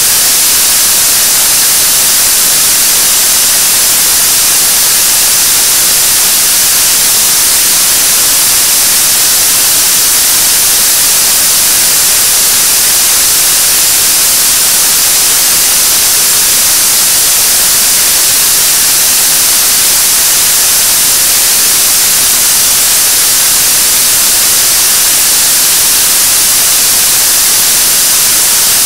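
Korean launch vehicle's 7-tonne-class kerosene–liquid-oxygen third-stage rocket engine (qualification model) firing at steady thrust on a test stand. Its exhaust makes a loud, unbroken rushing hiss, heaviest in the high end, with no change in level: a stable steady-state burn during a 500-second hot-fire test.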